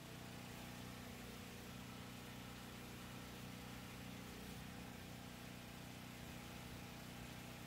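Storm Responder 5500 portable generator's engine running steadily on gasoline, faint, with a tri-fuel conversion kit fitted, in a test that the gasoline side still works.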